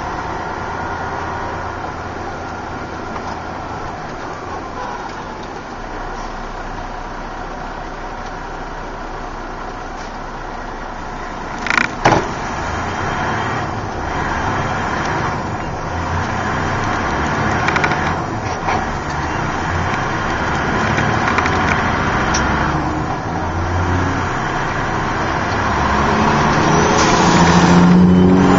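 Truck engine heard from inside the cab, running at low speed and then pulling away and picking up speed. There is a sharp double clank about twelve seconds in, and the engine grows louder near the end.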